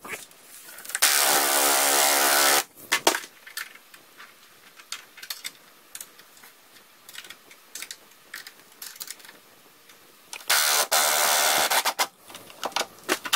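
Impact wrench hammering in two bursts of about a second and a half each, about a second in and again near the end, running down a puller's forcing screw to draw the rear bearing carrier out of a corroded Evinrude outboard gearcase. Light clinks of metal tools are heard in between.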